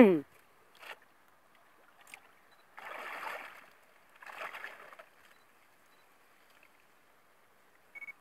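Water splashing and sloshing as a shrimp net is worked and lifted out of shallow water, in two short bursts about three and four and a half seconds in. A brief loud cry with falling pitch opens it, and a short high beep sounds near the end.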